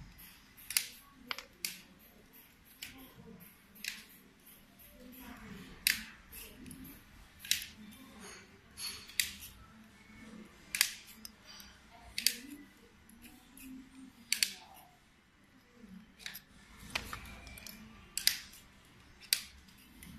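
Hex key working the screws out of an aluminium motor end plate: sharp metallic clicks, unevenly spaced about once a second.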